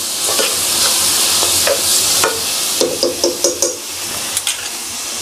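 Chopped onions and green chillies sizzling steadily in hot oil in a pan as they are stirred, with scattered knocks and scrapes of the stirring utensil against the pan and a quick run of them about three seconds in.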